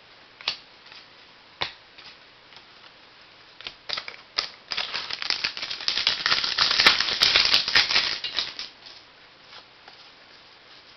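Trading cards and their packaging handled by hand: a few light clicks, then a dense run of crackling and clicking for about four seconds in the middle, loudest just before the end of it.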